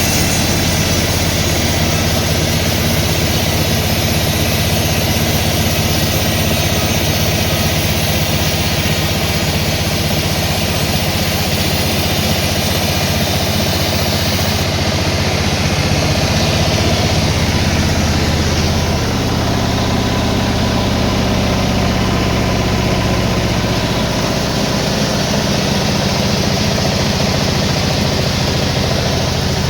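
Sawmill machinery running steadily with an engine-like drone, its pitch dropping a little about nineteen seconds in.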